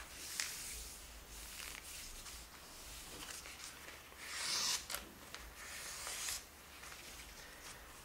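A sheet of origami paper rustling and crinkling as it is handled, lifted and creased by hand. There are several short rustles and a few small clicks, with the loudest rustle about halfway through.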